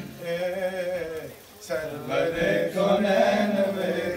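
Men singing a devotional qasida in praise of the Prophet Muhammad, sustained sung phrases with a short break between lines about a second and a half in.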